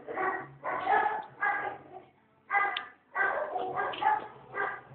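Young German shepherd puppies crying and whimpering: a string of short, high-pitched cries, some coming in quick runs, with a brief pause a little after two seconds in.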